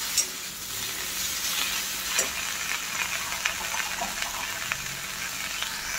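Brinjal and potato pieces sizzling in hot oil in a kadai while a steel ladle stirs them, its edge scraping and clicking against the pan. Sharper clicks come just after the start and about two seconds in.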